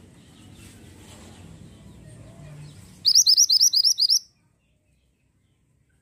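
Minivet (mantenan) giving a quick trill of about eight rising whistled notes, lasting just over a second, starting about three seconds in.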